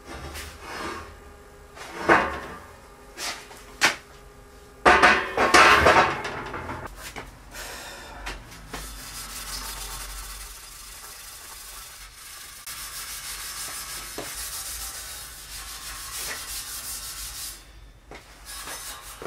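Grinding the welds on a welded steel pull-up bar: a steady, even abrasive hiss from about eight seconds in, with a brief break near the end. It is preceded by a few short, loud clanking bursts.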